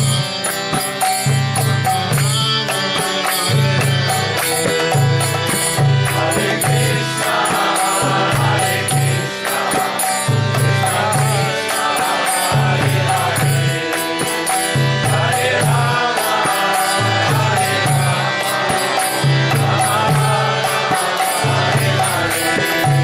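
Kirtan: a mantra chanted in bending sung phrases over a steady, repeating drum beat and the quick ringing ticks of small hand cymbals, with held instrumental tones underneath.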